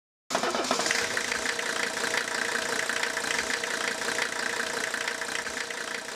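An engine idling with a fast knocking clatter, starting abruptly about a third of a second in and easing slightly quieter toward the end.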